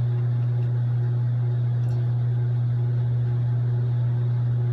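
A steady low hum, with a fainter, slightly pulsing tone above it.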